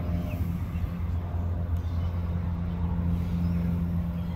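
Steady low engine drone of motor vehicles.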